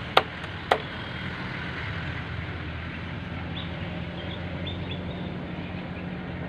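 Steady low hum of a running motor, with two sharp clicks about half a second apart near the start.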